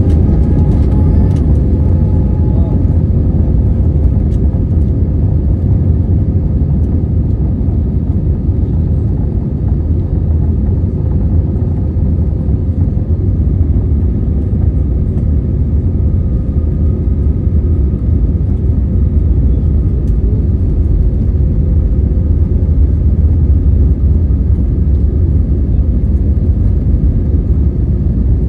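Airbus A321neo jet engines running during takeoff: a loud, steady low rumble with faint steady tones over it.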